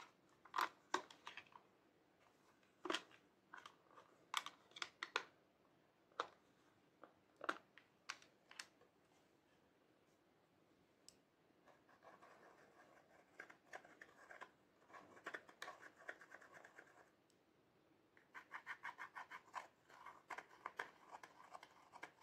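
Sharp clicks and taps from handling a plastic eyeshadow palette, followed by a pointed tool scratching rapidly at the pressed powder pans in two runs of several seconds each, crumbling the shadow.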